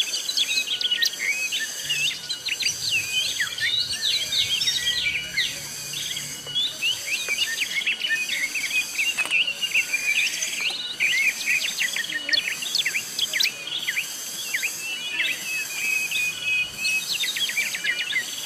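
Many birds chirping and whistling in short, overlapping calls over a high insect chorus that pulses on and off about once a second.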